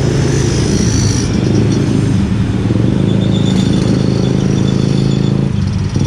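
KRL electric commuter train, an ex-Tokyo Metro 6000 series set, running past a level crossing and pulling away, mixed with motorcycle engines idling and pulling off as the riders start across. A steady low hum runs until about five and a half seconds in, then breaks off.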